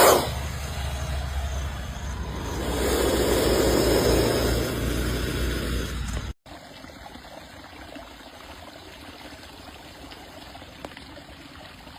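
Snake hissing: a long hiss that swells and fades over a couple of seconds, over a low rumble. About six seconds in it cuts off abruptly to a fainter, steady hiss.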